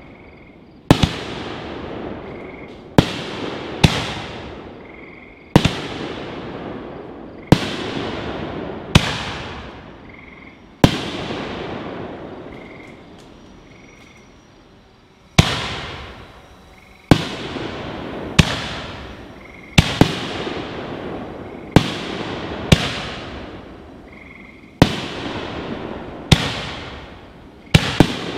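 Raccoon Fireworks Holy Nishiki canister shells firing in a steady sequence. Sharp bangs come about every one to two seconds, some in close pairs, and each echoes and dies away. There is a pause of about four seconds in the middle.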